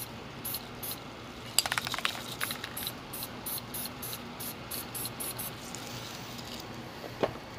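Aerosol can of black spray paint sprayed in many short puffs, a few a second, dabbing splotches. The hissing stops about five and a half seconds in, with a few sharp clicks near the second mark.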